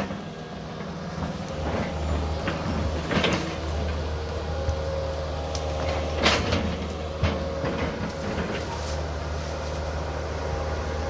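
Tracked excavator's diesel engine running steadily under load as its bucket digs out tree stumps, with scattered sharp knocks and clunks from the bucket working through roots and soil, loudest about three and six seconds in.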